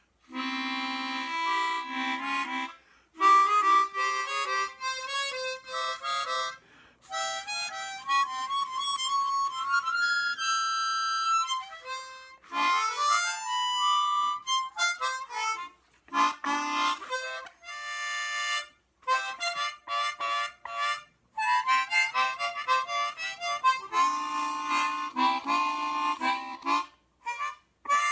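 An old 12-hole Hohner Super Chromonica chromatic harmonica being played: phrases of single notes and chords broken by short pauses, with a few notes bent down and back up in pitch around the middle.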